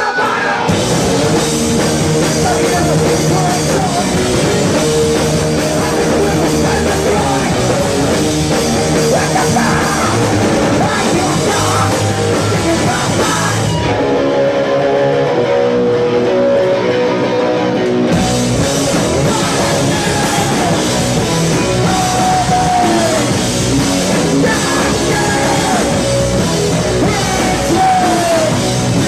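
Hardcore punk band playing live: distorted electric guitar, bass and drums with shouted vocals. About 14 seconds in, the drums and low end drop out for some four seconds, leaving the guitars ringing, then the full band comes back in.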